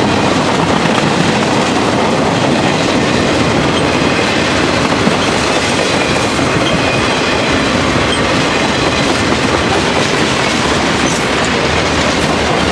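Freight cars of a CSX mixed freight train rolling past close by: a steady, loud rumble and clatter of steel wheels on the rails.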